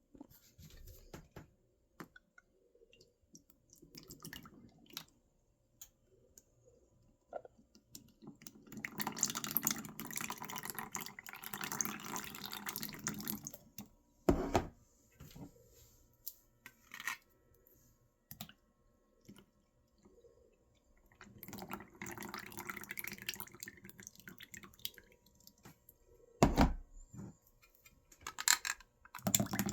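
Water running or being poured in two spells of several seconds each, with scattered clicks and knocks of kitchen utensils between them; two sharp knocks, one partway through and one near the end, are the loudest sounds.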